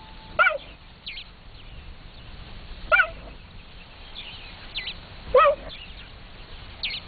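Cheetah chirping calls, the kind a mother makes to summon her cubs. Three loud, short calls come about two and a half seconds apart, with fainter, higher chirps in between.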